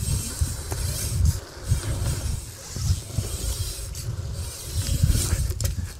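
Wind buffeting a clip-on lavalier microphone worn by a BMX rider as he rides, an uneven low rumble that rises and falls, over the hiss of the bike's tyres rolling on the skatepark surface. A few short knocks come through, about a second in and twice near the end.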